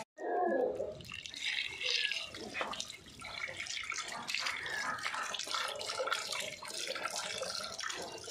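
Tap water running and splashing into an aluminium pot of sweet potatoes as hands rub them clean under the stream, with irregular splashes.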